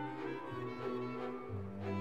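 Orchestral background music, bowed strings over a held low bass note that changes about one and a half seconds in.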